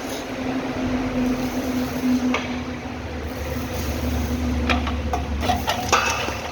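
Stone-cutting machine running with a steady motor hum, with a few short knocks and clatters from about halfway through.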